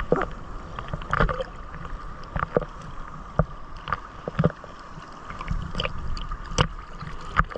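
Choppy seawater sloshing and slapping against a camera held at the surface, with irregular sharp splashes and knocks as the waves hit it.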